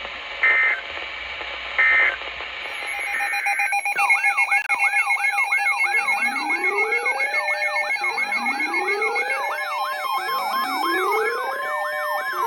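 Two short data bursts of an Emergency Alert System end-of-message code. About four seconds in, a dense overlapping mix of electronic sirens sets in: fast repeating yelps, slow rising wails every couple of seconds, and steady high tones sounding together.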